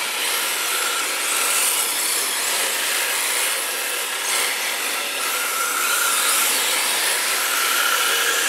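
Several RC drift cars sliding on a smooth hall floor: a steady hiss of hard drift tyres scrubbing across the surface, with the faint whine of their motors rising and falling.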